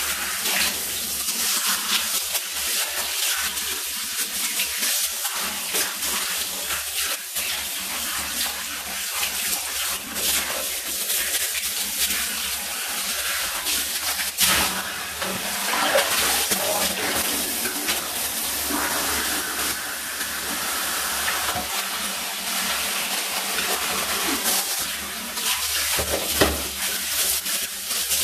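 Water spraying from a handheld shower-brush head that is being worked through a cat's wet fur in a bathtub. It is a steady hiss of running water with uneven splashing as the brush moves.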